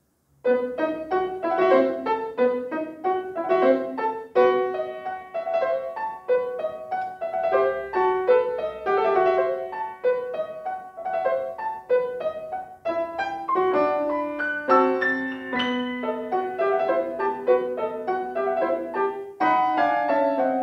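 Grand piano beginning a classical piece about half a second in, after silence, with quick, detached notes and chords.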